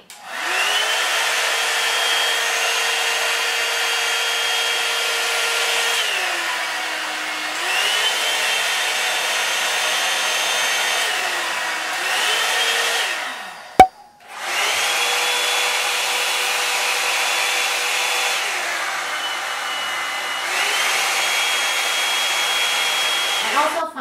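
Hot-air brush hair dryers (a Revlon One-Step and its dupe) running with the fan whine and air rush, switched between settings so the motor's pitch drops and rises again several times. About 14 s in there is a sharp click and a brief gap before the next dryer run starts.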